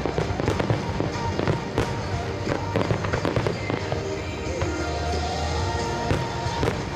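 Fireworks exploding in quick succession, a dense run of bangs and crackles that thins out in the second half, with music playing underneath.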